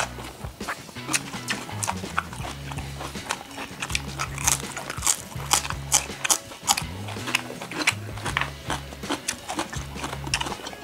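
Close-miked chewing of food, with many sharp wet clicks and crunches, over background music with a repeating low bass pattern.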